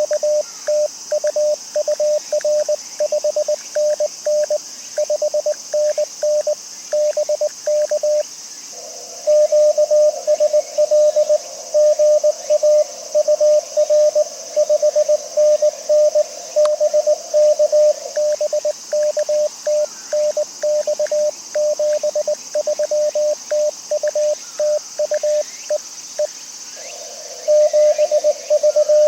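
Morse code (CW) from an amateur radio transceiver: a single tone of about 600 Hz keyed on and off in dits and dahs, with short pauses between transmissions about eight seconds in and near the end. A steady faint hiss lies underneath.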